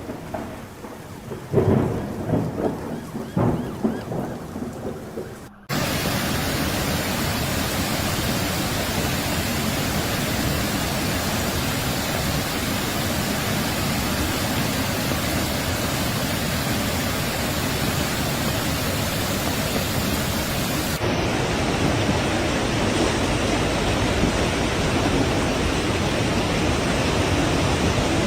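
Thunder rumbling several times in a storm, then, after an abrupt cut about five and a half seconds in, the steady, loud rush of heavy rain in a downpour.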